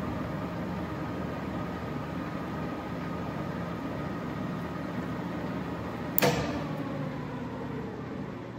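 1979 Daewoo-Ikegai A20x60 gear-head lathe running with its spindle at the lowest speed, about 18 RPM: a steady hum with a thin whine from the geared headstock. About six seconds in comes a sharp clunk, after which the whine dips in pitch and the running sound slowly fades.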